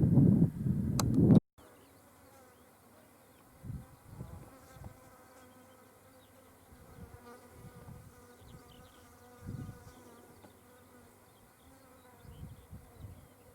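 Strong wind buffeting the microphone, the loudest sound, cutting off abruptly about a second and a half in. After that an insect buzzes steadily, with a few soft low thumps of wind.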